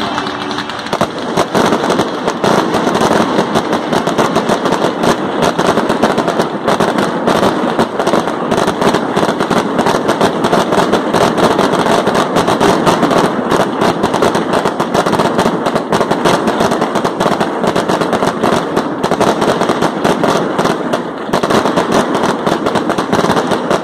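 Fireworks barrage: a loud, dense, rapid volley of launches and crackling bursts, close together like machine-gun fire, with a brief lull near the end.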